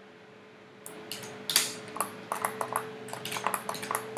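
A quick, irregular run of sharp clicks and clinks starting about a second in, the loudest near the start, over a faint steady hum.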